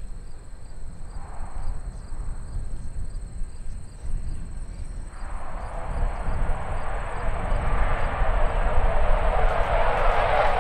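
Jet noise from a CF-18 Hornet's twin General Electric F404 turbofans, a low rumble that builds from about halfway through and grows steadily louder as the jet climbs away from a low approach under power.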